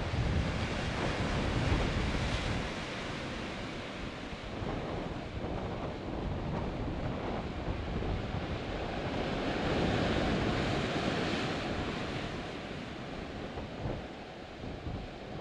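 Sea surf washing in over rocks and boulders, swelling and ebbing, loudest near the start and again about ten seconds in, with wind buffeting the microphone.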